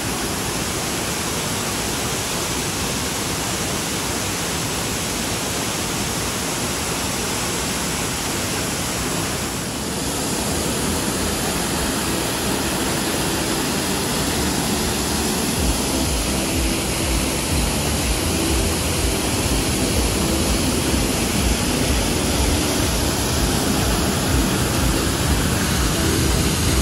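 Waterfall pouring over a rock ledge into a shallow plunge pool: a steady rush of falling and splashing water, a little louder and deeper from about ten seconds in.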